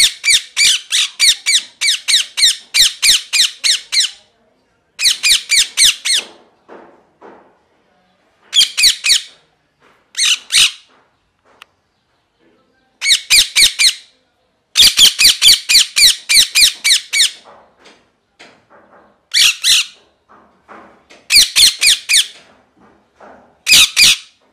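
Rose-ringed (ringneck) parakeet screeching: runs of rapid, sharp, high-pitched calls, several a second. Each run lasts from under a second to about four seconds, with short pauses between runs.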